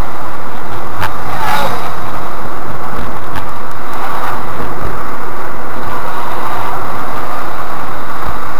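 Loud, steady engine and road noise inside a Škoda Rapid 1.6 MPI's cabin, picked up by a dashboard camera, with a sharp click about a second in and a short falling tone just after.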